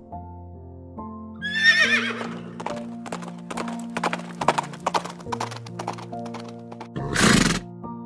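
A horse whinnying once, a wavering call that falls in pitch, followed by a run of hoofbeats and a loud noisy burst near the end, over background music.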